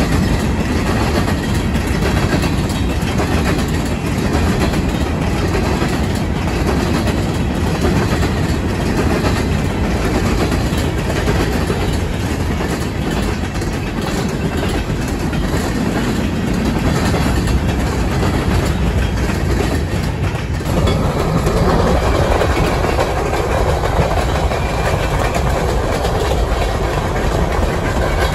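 Freight cars of a Union Pacific train, covered hoppers and refrigerated boxcars, rolling past with a steady rumble and wheels clicking over rail joints. About two-thirds of the way through the sound changes abruptly to the train heard from inside a moving car running alongside it, with the car's own road noise.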